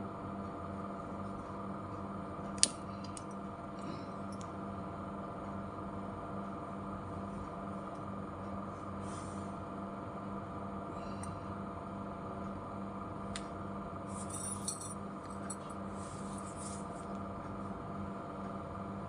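Small clicks and taps from handling craft stones, a glue tube and a stick while gluing stones onto a hair clip: one sharp click a little over two seconds in, the loudest, then scattered faint clicks and a run of light crackles about three quarters of the way through, over a steady low hum.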